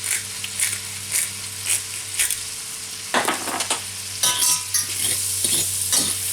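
Shrimp sizzling in olive oil in a frying pan, with a utensil scraping and knocking against the pan as they are stirred, roughly two strokes a second. A few short metallic clinks ring out in the second half.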